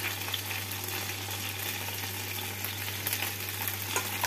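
Chicken leg pieces sizzling in oil in a frying pan, a steady hiss, with a few light clicks of a spatula against a steel bowl near the end.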